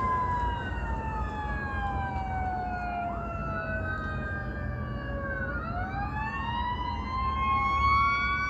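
Several emergency vehicle sirens wailing at once, each slowly falling and rising in pitch out of step with the others, over a low rumble; they grow louder near the end.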